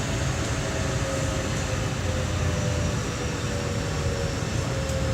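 In-car running sound of a JR West 207 series 1000 subseries electric train: a steady rumble of wheels and car body with a faint inverter whine that slowly drops in pitch. This set's inverter modulation sound is out of step with the rest of the 1000 subseries, giving it an odd tone.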